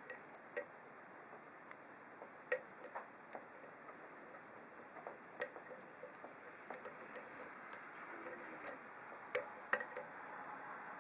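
Irregular light metallic clicks of a hook pick working the pin stacks of an ASSA SCD 7-pin oval lock cylinder under tension, with two louder clicks close together near the end.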